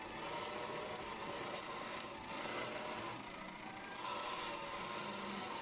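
Koolatron EC-23 mini vending machine running: a steady, faint whirring hum, with a few light ticks in the first two seconds.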